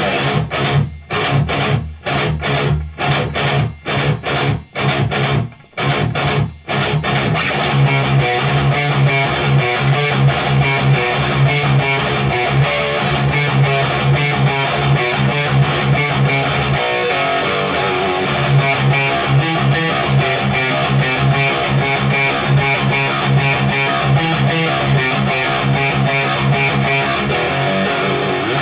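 Heavily distorted metal riff on an electric guitar (Ibanez RGA42FM, Seymour Duncan Omega bridge humbucker) through a cranked Randall Diavlo RD20 tube amp on a high-gain setting. For about the first seven seconds it plays short stabs broken by brief silences, then settles into continuous chugging riffing.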